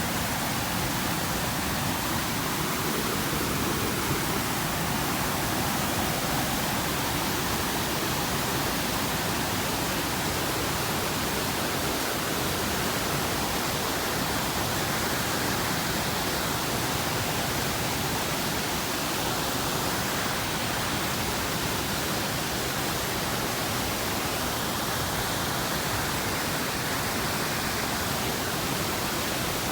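Waterfall rushing: an even, unbroken roar of falling water.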